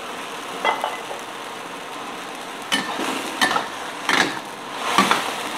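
A metal spatula knocks and scrapes against a stainless steel wok as sliced luffa is stir-fried, over a steady low sizzle. There is one stroke about a second in, then four more through the second half.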